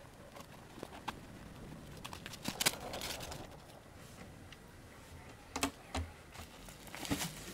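Irregular light clicks and knocks of camping gear being unpacked and set down on a table, with a louder cluster about two and a half seconds in and a few more sharp knocks near the end.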